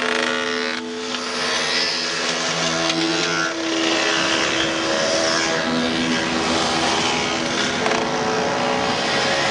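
A procession of mopeds riding past in a line, many small engines buzzing together at shifting pitches.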